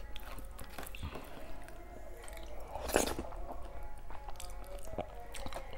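Close mouth sounds of chewing soft starchy rice mixed with mashed eggplant, with fingers squishing the rice on a steel plate and a louder mouth sound about three seconds in, over soft background music.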